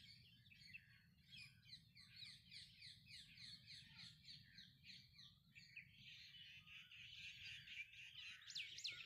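Faint birds chirping in quick repeated notes, with a few sharper sweeping calls near the end, over a low steady background rumble.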